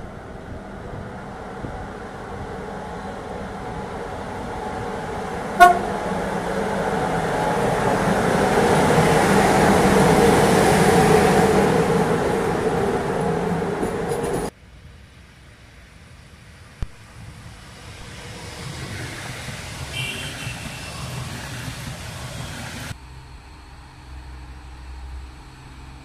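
Locomotive-hauled passenger train running past, its rail rumble rising to a peak. The locomotive's horn gives one short, sharp toot about five and a half seconds in. About two-thirds of the way through, the sound drops abruptly to a faint distant rumble.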